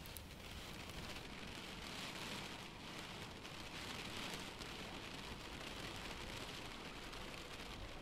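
Steady rain falling on grass, an even hiss with no break.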